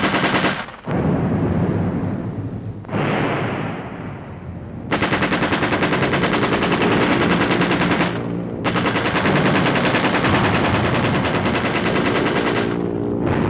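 Machine-gun fire in long bursts of rapid, evenly spaced shots, broken by brief pauses, as heard on an old film soundtrack.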